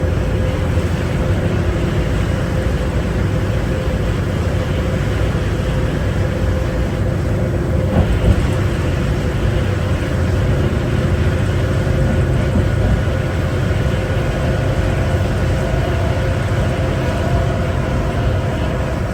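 A 2011 New Flyer D60LFR articulated bus, heard from on board, running at steady speed: a steady rumble of the Cummins ISL9 diesel and road noise, with faint steady whining tones and a single knock about eight seconds in.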